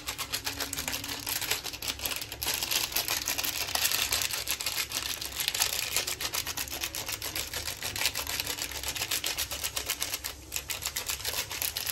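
A plastic spice packet is shaken and tapped over a pot of cooked rice, making a steady run of fast crinkles and small clicks, with a brief lull near the end.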